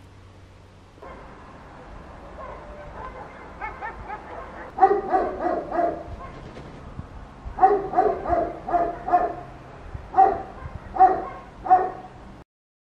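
A dog barking in runs of short barks, a first group about five seconds in and more groups after, over a faint steady background hiss; all sound cuts off suddenly just before the end.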